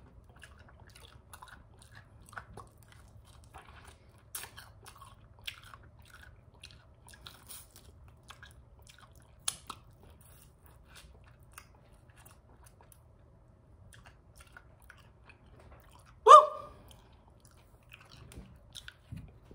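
Close-up mouth sounds of someone eating KFC fried chicken: small crisp crunches, chewing and wet mouth clicks. One much louder, short, slightly ringing sound comes near the end.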